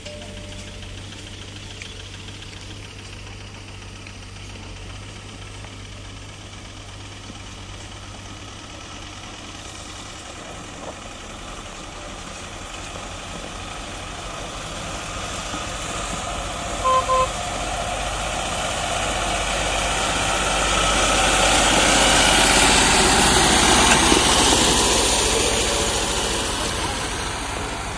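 Diesel engine of a wheeled farm tractor hauling a loaded hay trailer, approaching and growing louder until it passes close by, then easing off. Two short beeps sound about halfway through.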